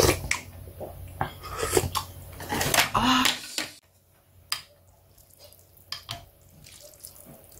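Wooden chopsticks and a spoon clinking and scraping against a ceramic bowl of ramen as the noodles and broth are stirred, in short scattered strokes; it drops off suddenly a little over halfway through, leaving only a few faint clicks.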